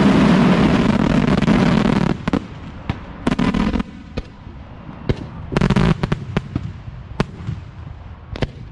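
Fireworks finale at close range: a loud, dense barrage for about two seconds, then it stops abruptly. Scattered single cracks follow, with two short rattling bursts of firecrackers, one a little over three seconds in and one near six seconds, as the last pieces go off.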